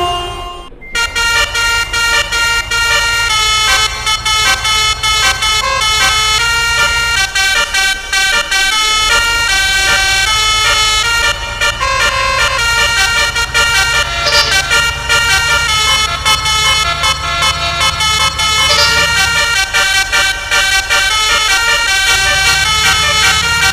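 Basuri musical horn playing a long, fast melody of stepped horn notes, over a steady low hum that drops out twice for a second or two.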